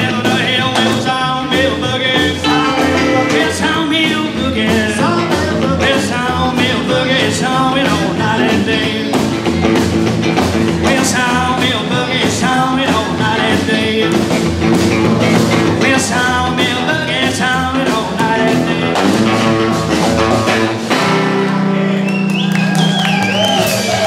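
Live rockabilly band playing: electric guitar leading over slapped upright bass and drum kit in a driving boogie rhythm. About three seconds from the end the band lands on and holds a final chord.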